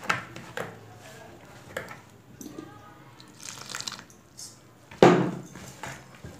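A hand mixing dry flour in a plastic bowl: soft rustling with several sharp knocks and clatters of the hand and bangles against the bowl, the loudest about five seconds in.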